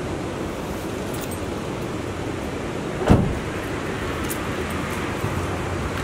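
Steady outdoor background noise, with a few light clinks as fishing gear is handled and a single thump about three seconds in.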